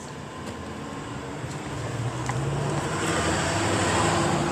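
A motor vehicle passing by: a steady low rumble with tyre-like hiss, growing louder through the second half.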